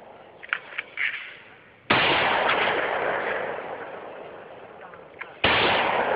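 Two AR-15 rifle shots about three and a half seconds apart, each a sudden sharp report followed by a long fading tail. A few short faint clicks come before the first shot.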